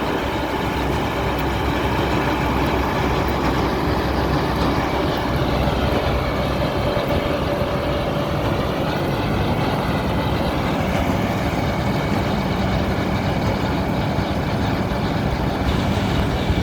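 Diesel engine of a 1998 John Deere 2256 combine harvester running steadily.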